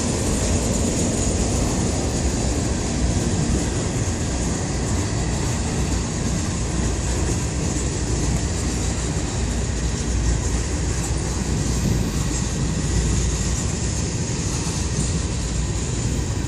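Freight train of covered hopper cars and tank cars rolling past: a steady, even rumble and rattle of steel wheels on the rails.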